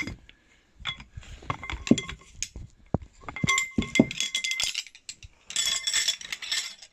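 The folding base of a hood hairdryer stand being folded up by hand: a run of sharp clicks and knocks, some with a short ring, then a denser clinking rattle about five and a half seconds in.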